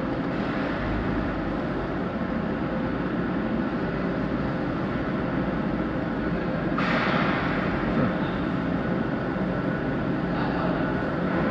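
A car driving slowly on a ferry's steel car deck, heard from inside the cabin: a steady low engine and road rumble, with a brighter hiss setting in about seven seconds in.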